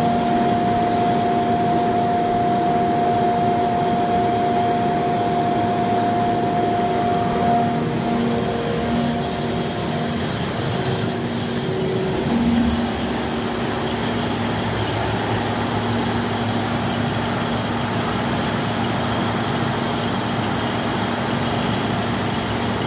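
Cummins KTA50 G8 V16 turbocharged diesel generator set running steadily: a loud, even engine noise with a steady whine over it that fades about halfway through.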